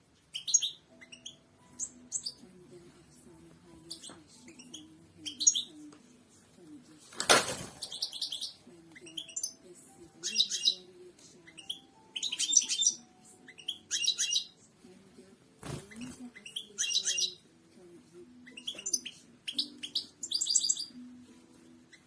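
Goldfinch singing: a run of quick twittering chirps and fast trilled phrases, thickest in the second half. Two brief loud rustling knocks break in, about seven and sixteen seconds in.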